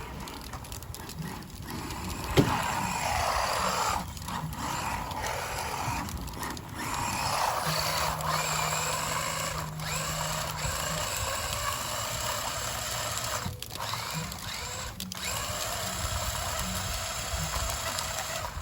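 An RC truck's electric motor whines under throttle, dropping out briefly several times as the throttle is let off and picking up again. There is a sharp click a couple of seconds in.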